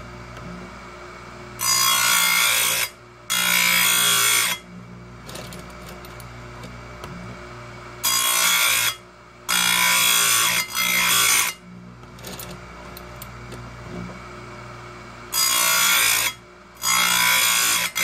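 Oregon 410-120 bench chain grinder sharpening 3/8 semi-chisel chainsaw chain: the wheel is brought down onto the cutters in loud grinding passes of about a second each, mostly in pairs a few seconds apart. Between passes the grinder's motor runs with a steady hum and there are a few light clicks.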